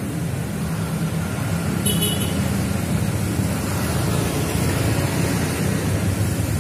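Steady low rumble of road traffic, with one brief high-pitched chirp about two seconds in.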